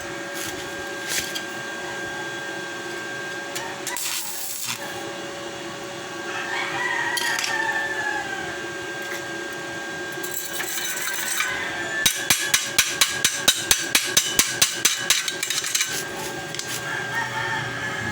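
Welding work on a motorcycle's bullet-pipe exhaust: a steady hum runs underneath, with a short crackling burst about four seconds in and a rapid run of sharp taps, about six a second for three seconds, past the middle.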